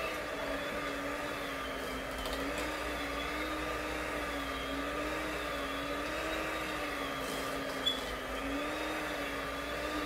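Handheld electric mixer running steadily, its beaters whipping mashed potatoes in a steel pot. The motor's hum rises and falls slightly in pitch.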